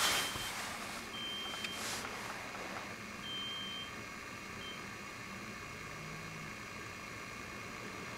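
A gas pump's electronic beeper sounding a few high single beeps of uneven length, each about half a second or shorter, with a very short one near the middle. A brief rustle of noise right at the start is the loudest sound.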